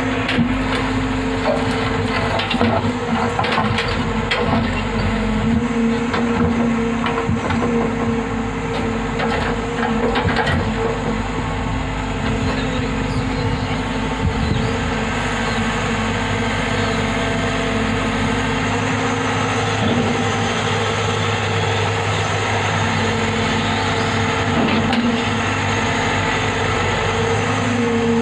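Hyundai Robex 110-7 excavator's diesel engine running steadily under hydraulic load while loading rock into a tipper truck, with scattered clanks and knocks of rock against the truck's steel dump body, a cluster in the first few seconds and again around ten seconds in.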